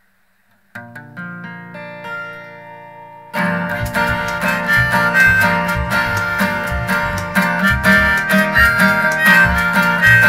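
Acoustic string band starting a bluegrass-gospel tune. An opening chord rings out and fades, then about three seconds in the whole band comes in: acoustic guitar and harmonica over a steady rhythm of washboard scrapes and washtub bass thumps.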